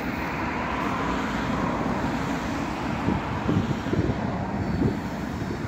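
Class 56 diesel-electric locomotive, DCR 56091, running its engine under power as it gets the train away, heard at a distance as a steady rumble with uneven louder surges about halfway through.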